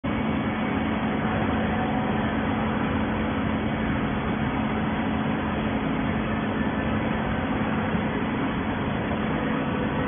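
Steady hum of a running horizontal baling press and its factory surroundings: a constant low drone over an even mechanical noise, with no knocks or changes.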